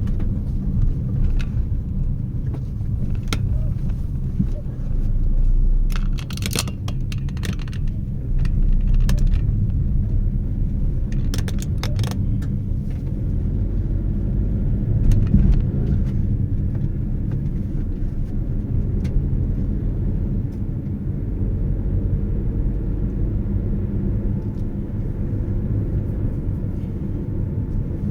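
Steady low rumble, like a vehicle heard on the move, with brief clattering about six and again about eleven seconds in.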